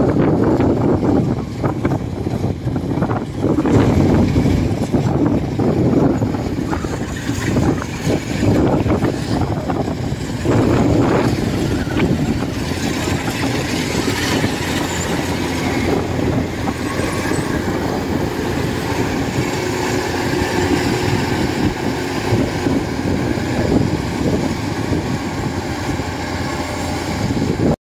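Kubota DC-93 combine harvester's diesel engine and threshing machinery running steadily while it cuts rice, a continuous low rumble that is gustier in the first half and evens out after about twelve seconds.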